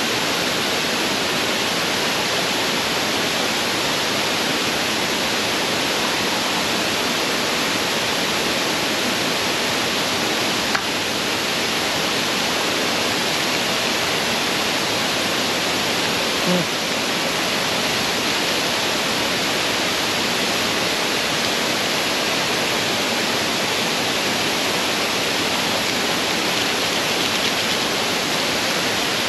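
Steady rushing of a waterfall, even and unbroken, with two small knocks partway through.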